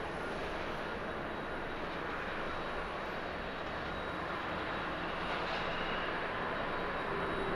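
Jet engines of a landing Boeing 777-200ER airliner: a steady rushing noise that grows slightly louder over the last couple of seconds as it touches down and rolls out.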